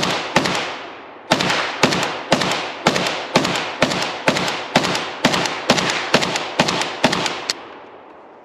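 Izhevsk AKM-pattern rifle in 7.62x39 firing Sellier & Bellot ammunition in a rapid string of single shots, about two to three a second, each with an echoing tail. There is a short break about a second in, and the firing stops about a second before the end.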